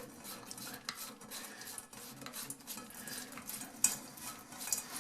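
Water trickling and dripping from the loosened supply connection under a toilet tank into a pot, with scattered light clicks and clinks and one sharper click about four seconds in.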